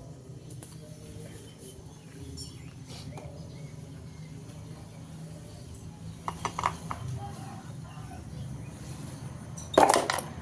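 A low, steady hum with a few light clicks about six seconds in and a short, sharp cluster of knocks near the end.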